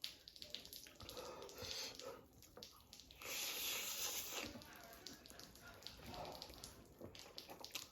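A person eating instant noodles with small wet mouth clicks and chewing, and one long slurp from a little after three seconds in to about four and a half seconds.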